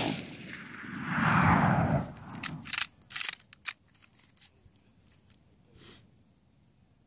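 The tail of a Mosin-Nagant 91/30 rifle shot in 7.62x54R, with the report rolling back off the hills for about a second and a half. A run of sharp clicks follows around the middle: the bolt being worked to eject the spent case and chamber the next round.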